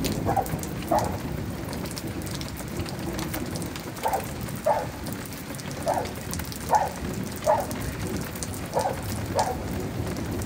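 Steady rain falling, with about nine short plinks at uneven intervals.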